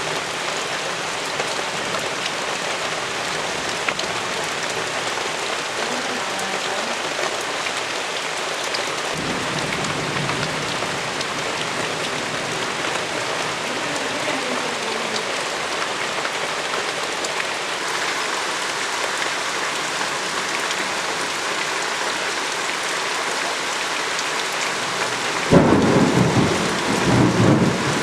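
Heavy monsoon rain falling steadily. A low roll of thunder comes in about a third of the way through, and near the end a sudden loud thunderclap breaks and rumbles on.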